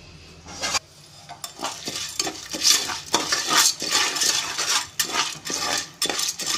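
A spoon stirring popcorn kernels in oil and spice powders inside a metal pressure cooker pot, scraping and clinking against the pot in quick, uneven strokes that start about a second in.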